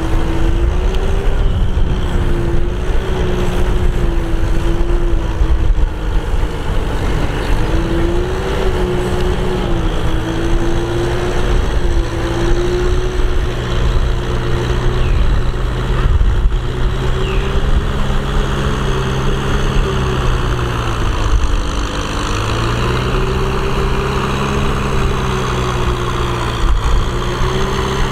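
Farm tractor's diesel engine running under load as it pulls a rotary tiller through wet paddy mud, with a steady whine above the engine note. The pitch sags and recovers a few times as the load changes.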